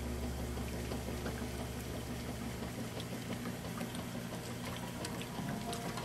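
Water sloshing and churning in a Whirlpool/Kenmore top-load washing machine tub as the agitator works the load, over a low machine hum that weakens about halfway through. The agitator is turning the load again after its agitator dogs were replaced.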